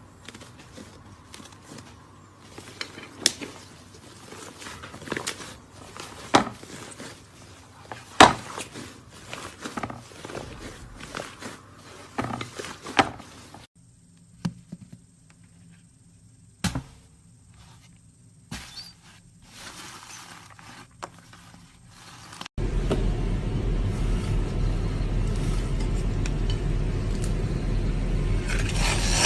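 Slime being squeezed and poked, with dense clicking and crackling air-bubble pops. It then goes quieter, with a few scattered pops. About three-quarters of the way through, a much louder, steady, dense noise abruptly takes over.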